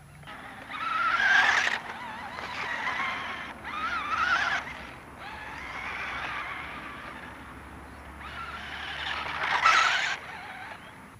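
A 1986 Taiyo Jet Hopper RC off-road buggy's electric motor whining and rising in pitch as it speeds up in bursts, with its tyres scrabbling over dirt. It is loudest as it passes close, about a second and a half in and again near the end.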